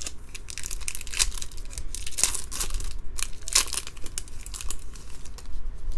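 Foil wrapper of a Bowman Draft baseball card pack crinkling and tearing as it is handled and ripped open. A run of sharp crackles, loudest about one, two and three and a half seconds in.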